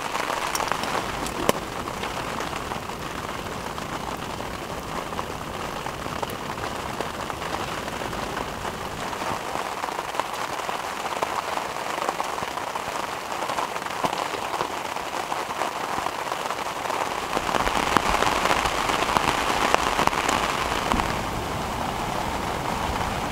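Steady rain falling, a dense patter of fine drops that grows louder for a few seconds near the end.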